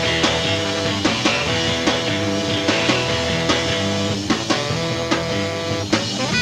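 Live rock band playing an instrumental passage: guitar chords over a steady drum beat.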